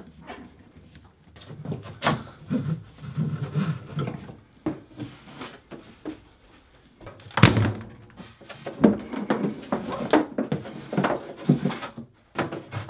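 Old, stiff plumbing hoses being handled and pulled out of a boat's sink locker, scraping and knocking against the fibreglass and wooden cabinet frame in irregular clunks and rustles, with a sharp thud about seven and a half seconds in.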